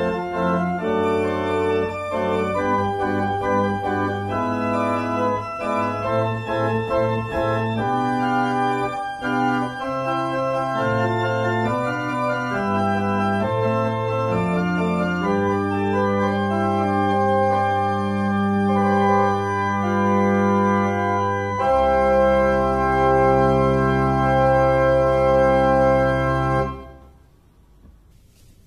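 Church pipe organ playing a piece in chords and moving lines over a deep bass. It ends on a long, low final chord held for about five seconds, which stops about two seconds before the end.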